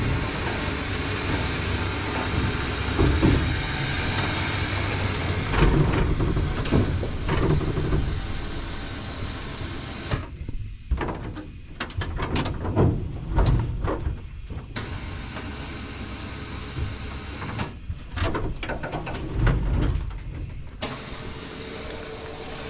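Race car rolling slowly: an uneven rumble with irregular knocks and clunks, quieter and more scattered in the second half.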